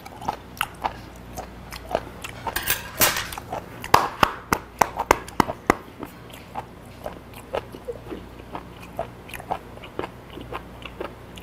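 A person chewing raw beef aorta (ttaerong, also called odeuregi), its gristly, crunchy texture giving a string of irregular crisp crunches. The crunches come thickest in the first half and thin out toward the end.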